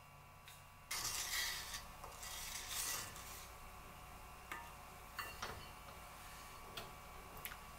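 Wooden spoon scraping and stirring mashed pumpkin in a bowl for about two seconds, followed by a few light knocks of a wooden spoon against an enamel saucepan.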